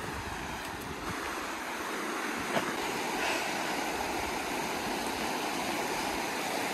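A shallow, fast river running over stones: a steady rush of water that grows a little louder about two seconds in.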